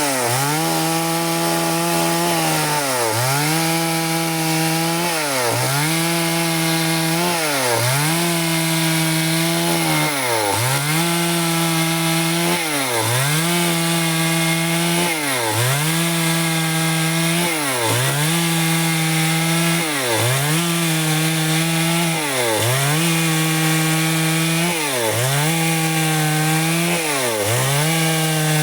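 Stihl chainsaw running at high revs while ripping wood into boards. Its engine pitch dips briefly and recovers about every two and a half seconds as the chain bites into the cut.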